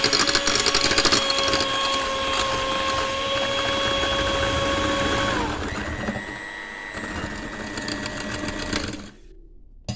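Philips electric hand mixer running, its beaters whisking eggs and brown sugar in a glass bowl, with a steady motor whine. The pitch shifts about halfway through, and the motor stops about nine seconds in.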